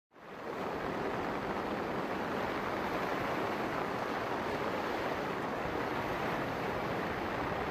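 Floodwater rushing, a steady unbroken noise that fades in over the first moment.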